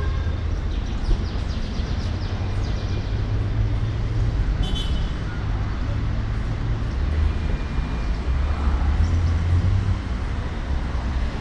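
Steady low rumble that swells and eases every few seconds, with a single short high chirp about five seconds in.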